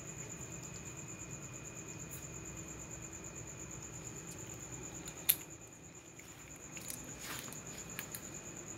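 A cricket trilling steadily in a high, even, fast-pulsed chirr. About five seconds in there is a single sharp click, and a few faint scratchy rustles follow near the end.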